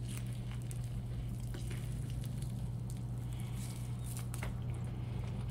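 Close-miked chewing of a fatty bite of sirloin steak: faint wet clicks and smacks of the mouth, over a steady low electrical hum.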